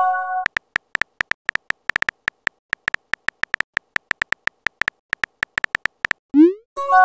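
Texting-app sound effects: the end of a short electronic chime, then a rapid run of keyboard tap clicks, several a second, as a message is typed. About six seconds in comes a quick rising swoosh as the message is sent, followed by another short chord-like chime.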